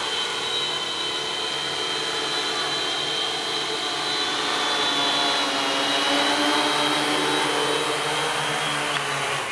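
Electric motors and propellers of two multirotor drones hovering with a steady whine. It grows louder about halfway through and stops abruptly at the end.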